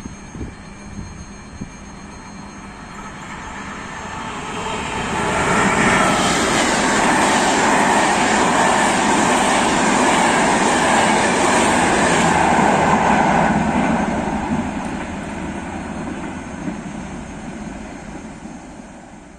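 Intercity passenger train passing through the station at about 130 km/h without stopping. The rush of wheels on rails builds over a few seconds, stays loud for about eight seconds while the carriages go by, then fades away.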